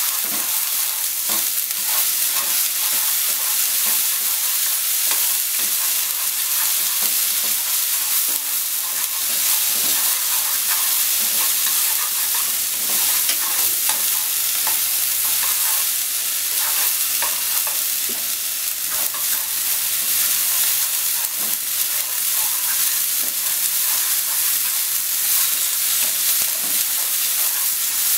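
Sliced negi (Japanese long green onion) sizzling in hot oil in a nonstick frying pan. It is stirred and tossed continuously with a wooden spatula that scrapes and knocks against the pan in many short clicks over a steady hiss.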